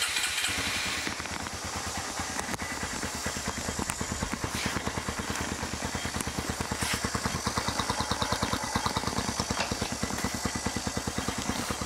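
Honda MSX125's single-cylinder four-stroke engine idling, with its firing pulses coming evenly and quickly at a steady pace.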